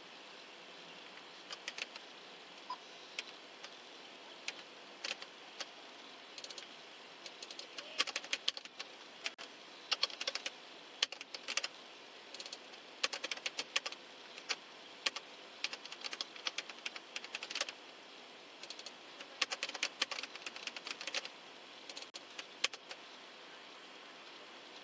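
Typing on a laptop keyboard: irregular bursts of keystroke clicks with short pauses between, starting about a second and a half in and stopping a couple of seconds before the end, over a faint steady hiss.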